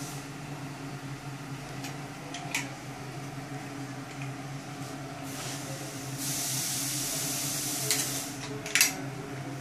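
Plastic clip hangers clacking and scraping against a metal clothes rail as flocked T-shirts are handled, with two sharp clacks, one about two and a half seconds in and a louder one near the end, and fabric rustling for a couple of seconds before the last. A steady low hum runs underneath.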